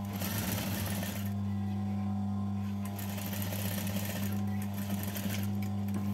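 Sewing machine stitching in short runs, stopping and starting three times, over a steady low hum, as it sews stretched elastic into a sleeve.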